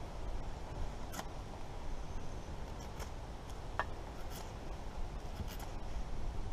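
Flexcut Carving Jack knife blade shaving a piece of wood: a handful of short, separate scraping cuts about a second apart, over a low steady rumble.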